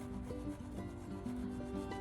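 Background music, a melody of held notes, with a rubbing sound underneath it.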